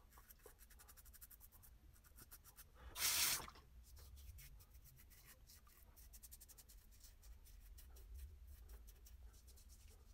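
Safety razor with an Edison stainless blade scraping through lather and stubble: a fast, dry crackle of short strokes. A brief louder rush of noise about three seconds in.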